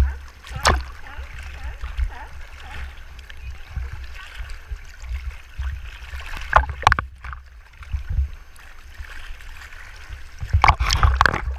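Sea water sloshing and splashing at the surface, with a constant low buffeting rumble. Sharper splashes come about a second in, twice around six to seven seconds in, and in a quick cluster near the end.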